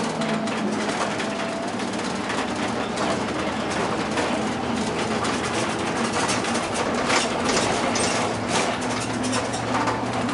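Inside a moving bus: the engine running with road noise, and frequent small rattles and knocks from the cabin.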